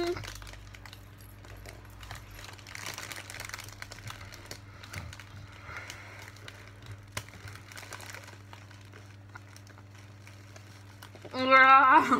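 Paper towel crinkling and rustling against the mouth as a mouthful of marshmallows is spat out into it, with soft mouth and breath noises. About eleven seconds in comes a loud, short burst of a woman's laughter.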